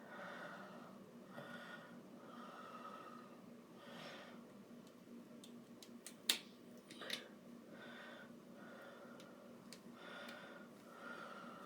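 Faint breathing close to the microphone, in soft swells every second or two, with two sharp small clicks a little past the middle, from handling the doll.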